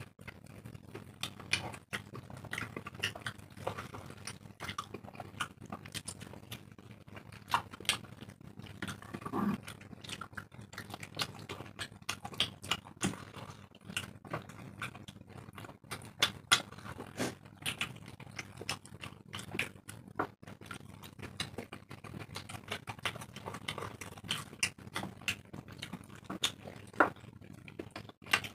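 Close-miked eating sounds of two people eating roti with chickpea curry by hand: irregular wet chewing and lip smacks, a dense run of small clicks with a few louder ones.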